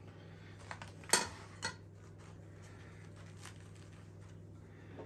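A few light clinks and knocks of a ceramic plate being handled and set down on a metal baking tray, the sharpest about a second in, over a low steady hum.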